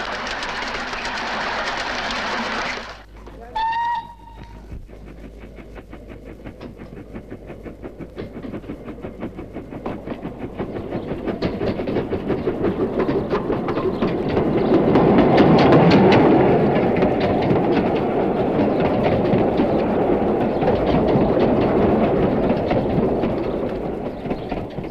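Small 15-inch-gauge steam locomotive, the railway's 0-4-0 engine the Bug, giving one short whistle after a steady hiss that stops abruptly. Its train then runs with a steady rhythmic beat of exhaust and wheels, growing louder to a peak past the middle and slowly fading away.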